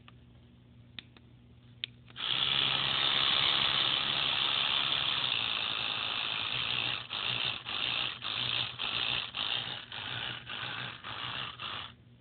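A few light clicks, then a Braun Oral-B Triumph Professional Care 9000 electric toothbrush running with a steady high buzz. After about five seconds the buzz pulses on and off about twice a second, then stops. The toothbrush is running again on its newly replaced battery.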